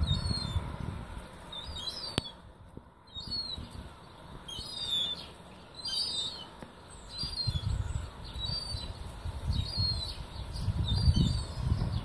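Juvenile gulls giving short, thin, high-pitched begging calls over and over, typical of young gulls that have seen their parents. A low rumble comes and goes underneath, louder in the second half.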